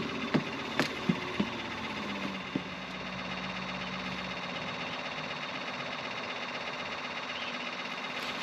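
Boat motor running steadily under an even hiss, with a low hum for a few seconds early on. Several sharp clicks sound in the first three seconds.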